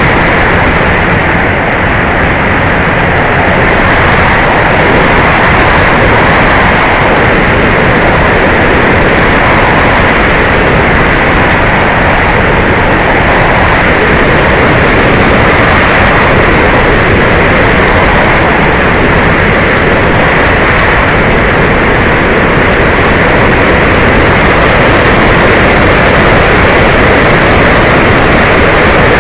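Onboard sound of an E-Flite Apprentice RC trainer in flight: its electric motor and propeller running steadily under the rush of wind over the airframe, loud and unbroken.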